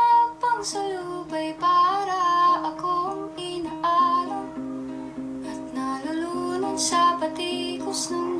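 Music: a guitar playing with a voice singing a melody over it.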